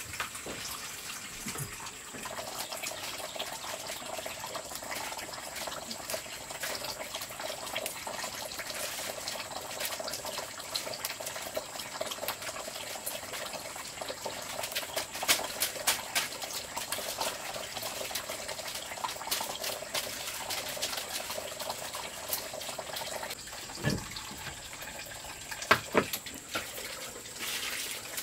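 Steady rush of running water, with a thin high steady tone over it and a few crisp snaps as leaves are picked from their stems.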